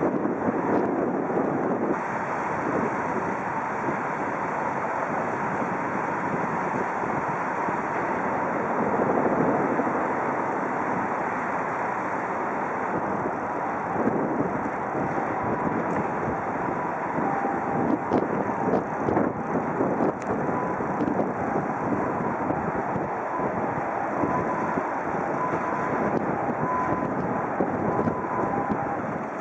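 Wind blowing on the microphone over a steady background rumble. A few brief knocks come in the middle, and a faint broken tone appears in the second half.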